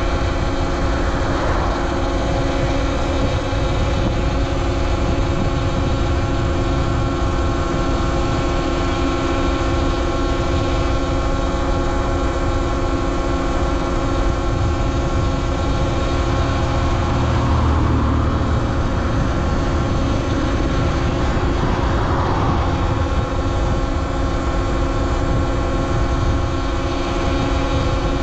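Talaria Sting R MX4 electric dirt bike under way: a steady whine of several fixed tones from its electric motor and drivetrain over a low rushing noise, holding level throughout.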